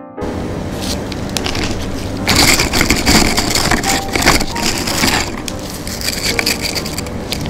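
Dry Marie biscuits being handled and snapped into coarse pieces by gloved hands: a dense crackling crunch that grows loudest from about two to five seconds in.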